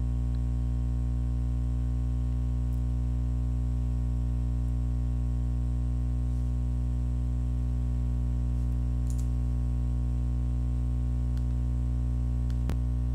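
Steady electrical hum, a low buzz with a stack of overtones that never changes, with a few faint clicks; the clearest click comes near the end.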